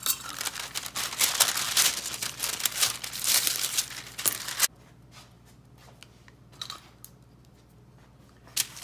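Parchment paper crinkling and rustling as pie dough is handled and pressed on it. It stops abruptly a little past halfway, followed by a few faint ticks.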